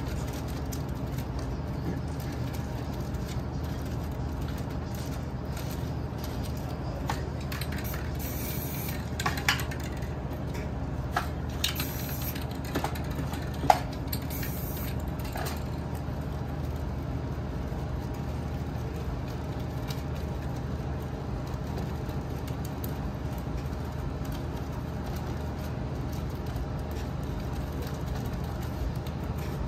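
Aerosol spray-paint cans hissing in three short bursts between about eight and fifteen seconds in, among a few sharp clicks and taps, the loudest about fourteen seconds in. A steady low hum runs underneath.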